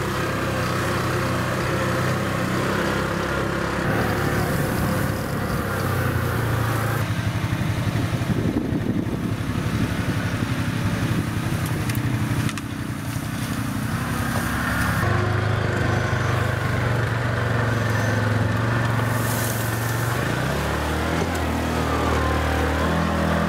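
Side-by-side UTV's engine running as it drives over rough, grassy ground. The engine note shifts abruptly several times.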